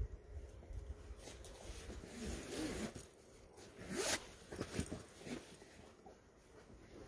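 Scuffing and scraping of a climber on a granite boulder: shoe rubber and hands brushing and catching on the rock in irregular strokes, with a sharper, louder scrape about four seconds in.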